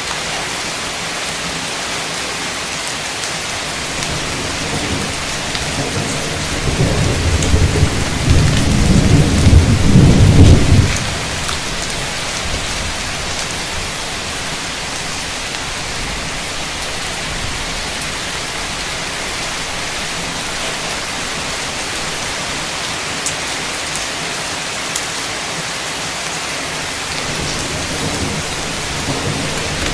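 Heavy, steady rain, with a roll of thunder that builds from about six seconds in and cuts off about eleven seconds in. A second rumble starts near the end.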